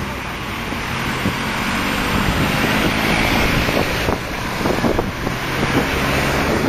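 Wind buffeting the microphone of a moving car, over the car's engine and road noise; the gusts grow choppier near the end.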